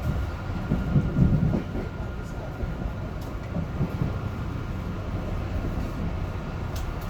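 Metro-North M3 electric multiple-unit train running along the track, heard from the cab: a steady low rumble that swells briefly about a second in, with a faint steady high whine above it.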